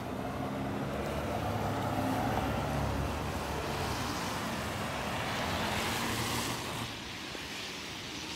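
A motor vehicle passing on the wet street: a low engine hum first, then tyre hiss on the wet road that swells and cuts off sharply near the end.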